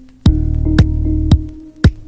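Electronic background music with a steady drum-machine beat, about two hits a second, over bass and synth tones.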